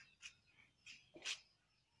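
Birds chirping: a few short high chirps, the loudest a little past halfway.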